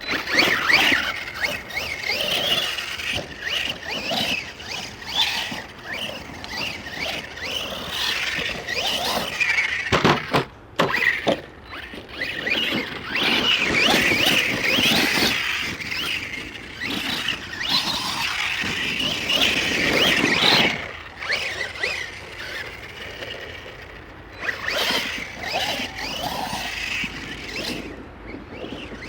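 Arrma Outcast 1/8-scale RC stunt truck's brushless electric motor and drivetrain whining, the pitch rising and falling over and over with the throttle, on a 4S battery.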